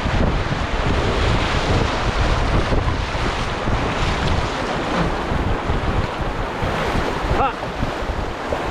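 Rushing whitewater around a canoe running a rapid, with wind buffeting the microphone. A brief pitched sound comes about seven seconds in.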